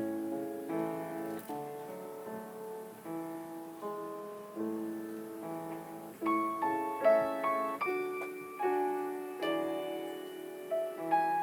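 Solo piano playing: a melody of struck notes over lower chords, getting louder about two-thirds of the way through.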